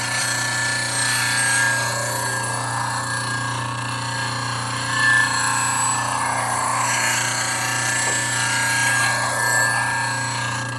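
Bench grinder running with a steady motor hum while a steel lathe scraper is swept flat across the wheel to grind its main bevel: a continuous grinding hiss that swells and eases with the sweeps. The grinding stops right at the end, leaving only the motor running.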